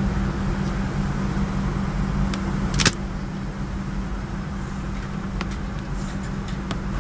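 Steady airliner cabin hum, with a sharp plastic-and-metal click about three seconds in and a few lighter clicks as a seat's fold-out tray table is handled in its armrest compartment.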